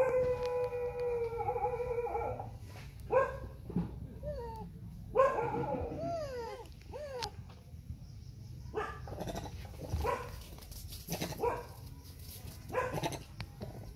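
Animal calls: one long held call of about two and a half seconds, then several shorter calls that slide up and down in pitch, followed by rougher, scrappier sounds.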